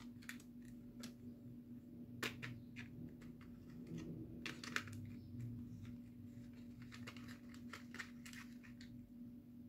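Light, scattered clicks and taps of hard plastic as a toy makeup compact and its small lipstick and applicator are handled, over a faint steady hum.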